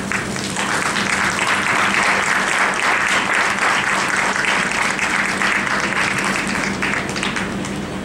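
Audience applauding, building up about half a second in and dying away near the end, over a steady low hum.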